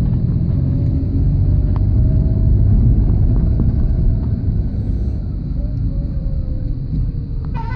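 A car driving on a narrow road, heard from inside the cabin: steady low engine and tyre rumble, with a brief higher-pitched sound near the end.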